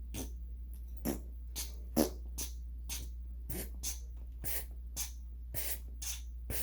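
African grey parrot making a quick run of short popping mouth noises, about two a second, over a steady low hum.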